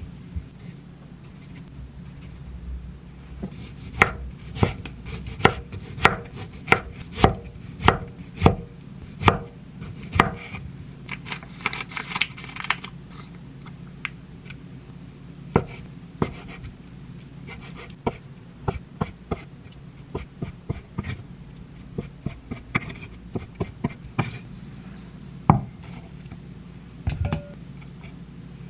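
Kitchen knife chopping on a wooden cutting board while cutting tomatoes and mozzarella. It starts as a run of sharp knocks, about one and a half a second, then breaks into sparser, lighter taps with an odd louder knock.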